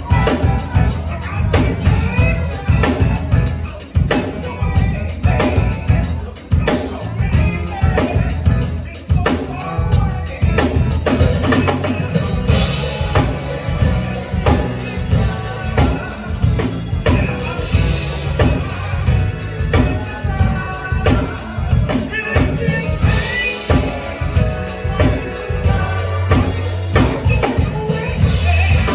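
Music with a steady drum kit beat and a heavy bass line.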